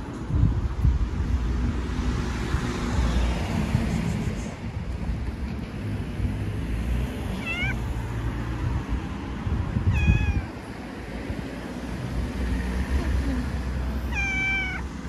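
Cat meowing three times: two short meows about seven and ten seconds in, and a longer, drawn-out one near the end, over a steady low rumble.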